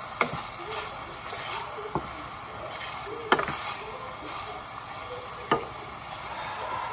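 Bacon sizzling as its fat renders in a stainless steel pot, stirred with a wooden spoon. The spoon knocks sharply against the pot four times, loudest about three seconds in.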